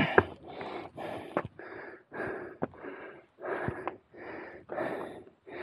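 A man breathing hard from exhaustion while climbing steep trail steps, heavy breaths in and out about twice a second. A few sharp clicks fall between the breaths.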